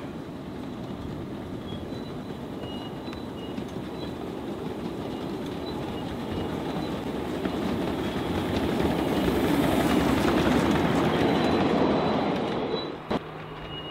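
Ride-on model train, a small steam-outline locomotive pulling two loaded flatcars, rolling by on its track: a steady rumble and clatter of wheels on rail that grows louder as it passes close, then drops away suddenly near the end.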